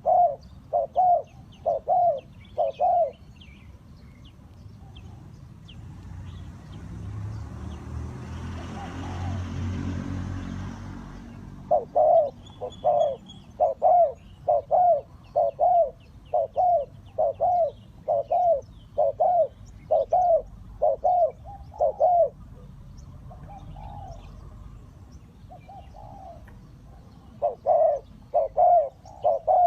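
Spotted doves cooing in repeated series of short, even coos, about one and a half a second: a few at the start, a long run through the middle and another near the end, with faint high chirps of small birds behind. Between the first coos and the long run, a low rumble swells and fades over several seconds.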